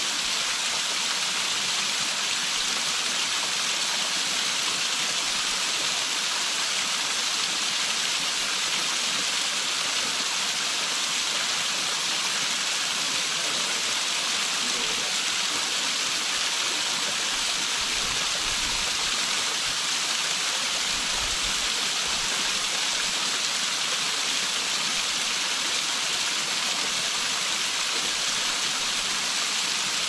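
Small waterfall falling in thin strands onto rock, a steady splashing hiss of water.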